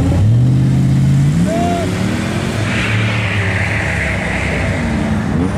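A vehicle engine revving hard as it pulls away, its pitch climbing over the first second and a half and then settling lower, with a rushing hiss for about two seconds in the middle.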